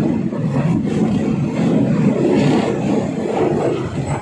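Diesel passenger train running at speed, heard from on board: a loud, steady rumble of wheels on the rails and the engine.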